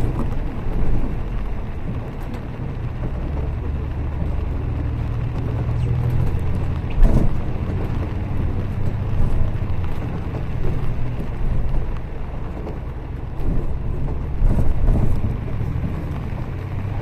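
A double-decker bus on the move, heard from inside: a steady low engine drone and road rumble, with a few knocks and rattles from the body, the loudest about seven seconds in.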